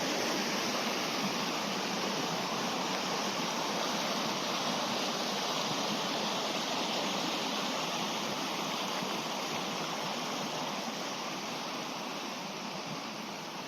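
Fast-flowing, rain-swollen moorland river rushing over rocks in a steady hiss, gradually fading near the end.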